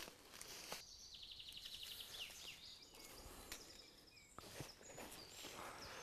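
Near silence: faint outdoor ambience with a few soft, high bird chirps and a short rapid trill about a second in, plus a few light clicks.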